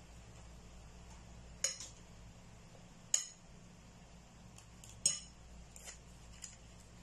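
Metal spoon clinking against a dish three times, about a second and a half apart, as apple filling is spooned out, with a few lighter ticks near the end.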